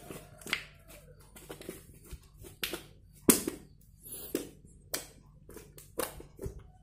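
Thick white tofu slime being squeezed in the hands and then pressed and kneaded flat against a tile floor, giving irregular sticky clicks and pops, the loudest about three seconds in.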